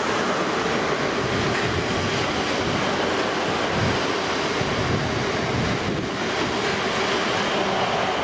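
A train running past with a steady rushing noise and a faint steady hum, with wind buffeting the microphone.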